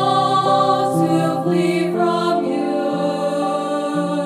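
Mixed four-part student choir (soprano, alto, tenor, bass) singing slow, held chords that shift every second or so, on the words "Where can I go to flee from You", accompanied by electric guitar.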